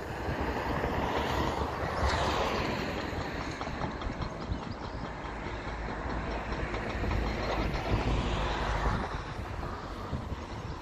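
Tracked excavator working at a distance: its diesel engine runs under load while stone grinds and rattles in the bucket as it digs and swings a load over to a dump truck. The noise swells about two seconds in and again near the end.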